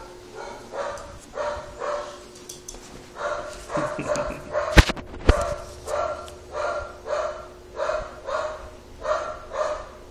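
Small dog, a Shih Tzu, barking over and over in an even rhythm of about two barks a second. Two sharp knocks come about halfway through.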